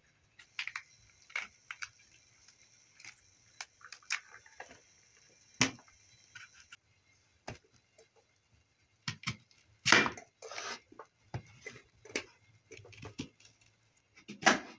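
Kitchen knife peeling and cutting a raw onion on a plastic cutting board set in a metal tray: irregular clicks and taps of the blade against the board, the loudest about ten seconds in.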